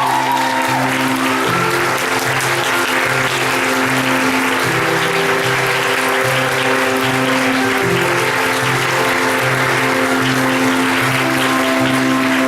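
Theatre audience applauding steadily over curtain-call music, a song with sustained notes over a repeating pulsed bass line.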